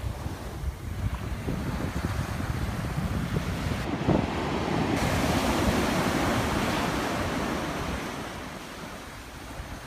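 Surf breaking and a wave washing up the sand, swelling about halfway through and then ebbing away, with wind buffeting the microphone.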